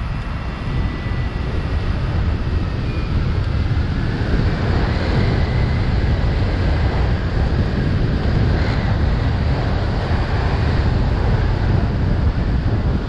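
Heavy wind buffeting on the microphone of a camera carried by a fast-flying FPV drone, a loud, rough rush with a faint high whine from the drone's motors coming and going.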